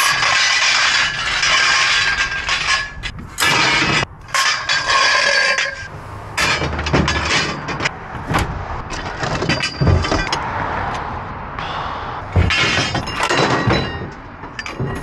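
Lengths of metal electrical conduit clattering and ringing against each other as they are gathered up and thrown into a pickup truck bed full of scrap. The clatter comes in repeated loud bursts, thickest in the first few seconds and again near the end.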